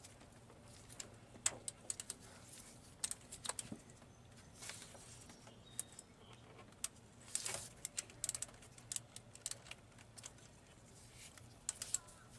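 Scattered light clicks, ticks and short rustles of tools and parts being handled during spark plug work, irregular and close together over a faint steady hum.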